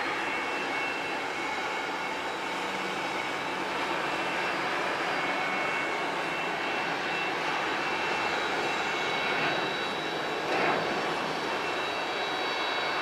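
Antonov An-124's four Progress D-18T turbofan engines running steadily, a constant jet rush with a thin high whine over it, as the freighter moves along the runway after landing. There is a brief louder swell about ten and a half seconds in.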